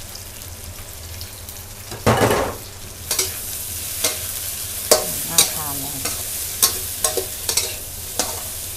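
Crispy pork belly sizzling in oil in a wok, with a brief louder surge about two seconds in. From about three seconds in, a metal spatula scrapes and clanks against the wok roughly once or twice a second as the pork is tossed.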